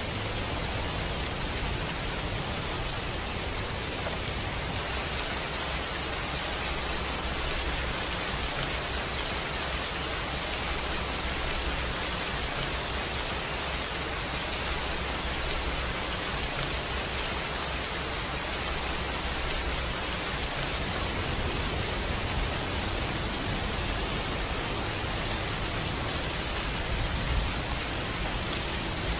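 Steady rain sound, an even hiss with a low rumble underneath, running without change as a background track.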